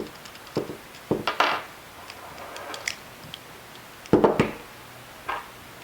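Small hard parts and tools being handled and set down on a work surface: a series of sharp clicks and knocks, with a louder clatter about four seconds in.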